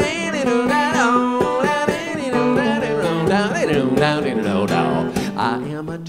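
Acoustic guitar strummed, with a man singing over it.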